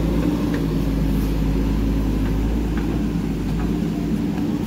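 Pickup truck's engine running steadily under load, a low even drone with a few faint ticks over it.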